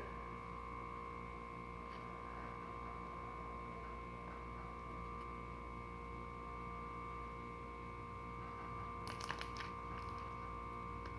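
Faint steady electrical hum with a fixed whine, and a short cluster of soft clicks about nine seconds in.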